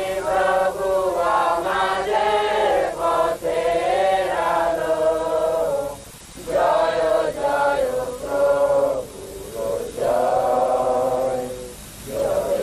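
A group of voices singing together in a chant-like song, in long held phrases broken by short pauses about halfway through and near the end.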